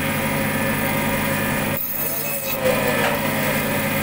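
Steady mechanical hum of running shop machinery, which dips briefly about two seconds in.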